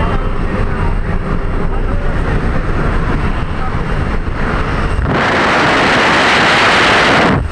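Jump plane's engine and slipstream rumbling steadily through the open door. About five seconds in, a loud wind rush on the camera microphone as it is held out in the slipstream, cutting off suddenly near the end.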